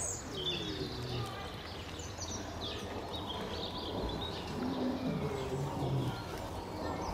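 Birds chirping in short high calls, over faint distant human voices.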